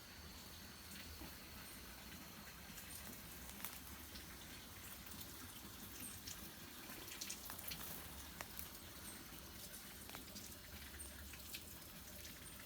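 Small campfire crackling faintly, with scattered irregular pops, and a short high chirp recurring every second or two.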